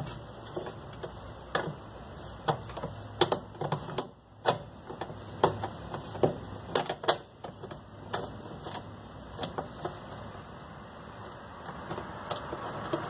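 Irregular metallic clicks and taps of a 13 mm wrench working a bolt on a washing machine's motor bracket as the motor is taken off.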